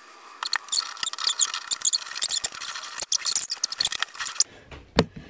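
Squeaky, crackling rubbing of plumber's thread-seal tape on a bathtub spout's threaded pipe as the spout is fitted, with many small ticks, dying away after about four seconds. A single sharp click comes near the end.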